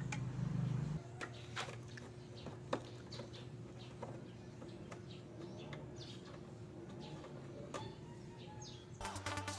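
Birds chirping in the background, short high calls scattered throughout, with a few sharp light clicks as plastic wire connectors are handled. A low hum stops about a second in.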